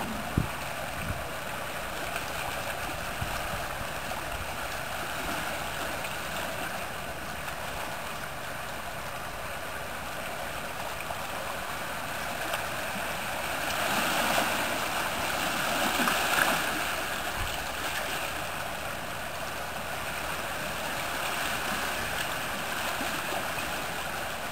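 Shallow sea water lapping and washing over rocks at the shoreline in a steady wash, which swells louder for a few seconds about midway.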